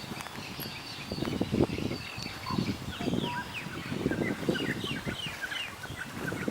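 Wild birds chirping: many short, quick, falling notes from several birds, with a low rumbling noise underneath.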